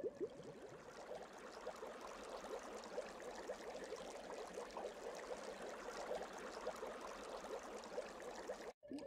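River water flowing and trickling, a steady babble with many small quick splashes.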